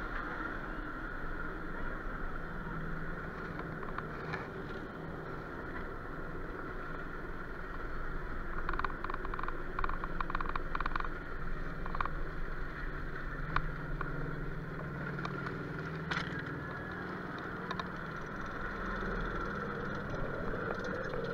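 Bobsled roller coaster car being hauled up the lift hill, heard from the rider's seat: a steady mechanical whine over a rumble, with a quick run of clicks about nine to eleven seconds in and a few single clicks.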